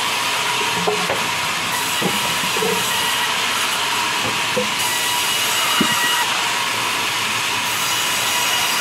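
Large sawmill band saw running with a steady loud hiss and a faint constant whine, with a few short knocks as wooden logs are handled on the saw table.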